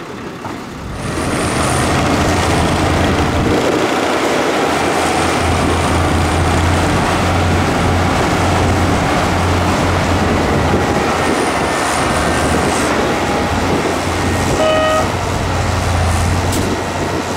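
Dump truck's diesel engine running up to drive the hydraulic hoist as the tipper bed lifts to dump soil, a steady heavy rumble with a low hum that starts about a second in. A brief high-pitched tone sounds once near the end.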